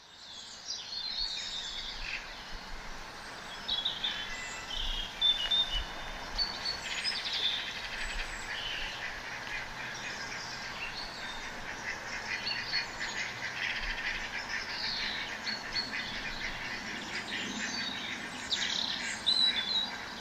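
Birds chirping and twittering, many short calls overlapping continuously over a steady outdoor background.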